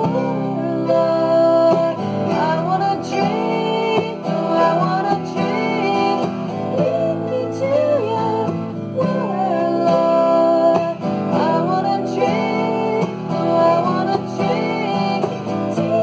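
Acoustic guitar strumming with a mandolin playing along, and a woman singing a slow worship song over them.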